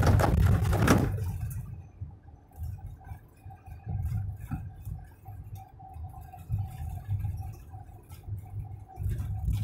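Cabin noise of a vehicle driving at highway speed: a low, uneven engine and road rumble with a steady thin whine. A loud rush of noise fills the first second and fades away.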